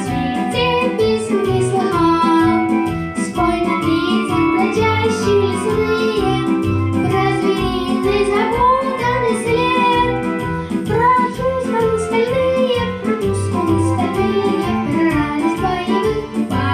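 A boy singing a lively song, his voice wavering up and down in pitch over instrumental accompaniment with a steady beat.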